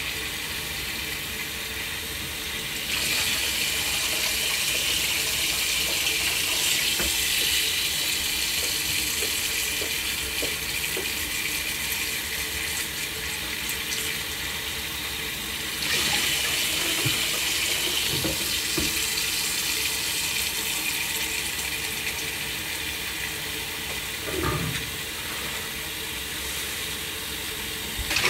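Kitchen tap running steadily into a wok of clams in a stainless steel sink, the stream splashing over the shells as they are rinsed. The rush of water gets louder about three seconds in and again about halfway, with a few soft knocks in the second half.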